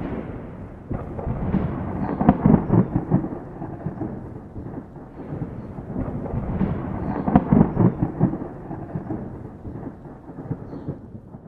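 Thunderstorm: rain with rolling rumbles of thunder that swell twice, about two seconds in and again past seven seconds, then ease off near the end.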